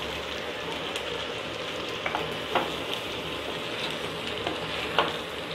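Oil sizzling in a clay pot as boiled potato pieces are stirred into fried shallots with a wooden spoon, with a few sharp knocks of the spoon against the pot.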